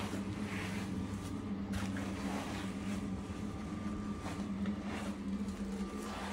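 A steady low mechanical hum, with faint wet squishing and rubbing as a rubber grooming glove scrubs shampoo lather into a dog's wet coat.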